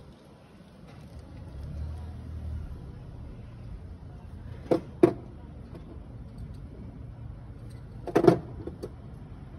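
Vauxhall Corsa engine idling with a steady low hum, with two sharp knocks about five seconds in and a short cluster of knocks near the end.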